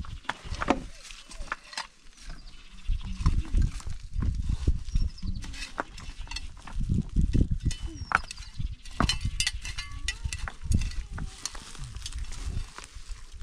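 Stones knocking and scraping as they are set by hand into a low dry-stone wall: a string of irregular sharp clacks over low rumbling.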